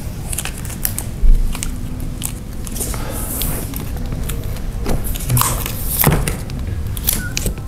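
Cardboard and paper packaging rustling and scraping as it is handled and pulled, with scattered crackles and one loud knock about a second in.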